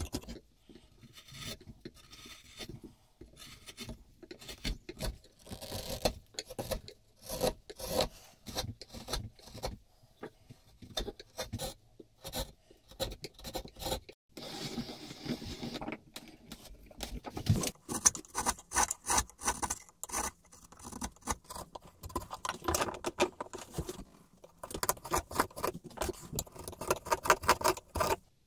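Bench chisel paring beech by hand: a run of short, uneven scraping and slicing strokes as thin shavings come off the curved edges of a wooden plane body, with a brief pause about halfway through.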